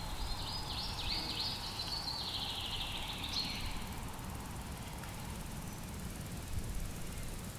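A small songbird sings a quick, jumbled run of high chirping notes, which stops about three and a half seconds in. Behind it is outdoor ambience with a steady low rumble.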